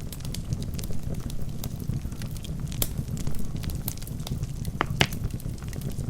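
Wood fire in a fireplace: burning logs crackling, with irregular sharp pops over a steady low rumble of the flames, one pop standing out about five seconds in.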